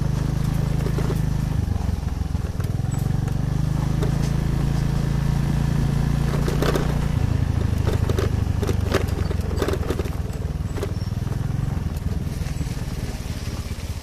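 Motorcycle engine running at low speed, its note shifting a few times as the throttle changes, heard from the rider's seat on a rough dirt track. A few sharp clicks and rattles come in the middle.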